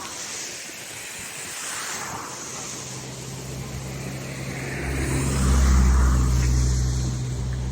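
A motor engine passing close by, its low hum growing louder to a peak a little past the middle and then easing off, over a steady hiss of wind and ambient noise.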